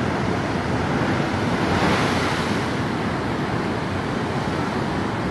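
Sea surf rushing as waves spill over a seawall and flood the ground behind it, with wind buffeting the microphone. The rush swells about two seconds in.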